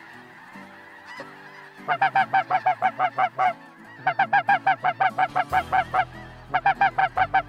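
Snow goose calls in three fast runs of evenly spaced high honks, about seven a second, over a fainter murmur of a large flock that fills the first two seconds.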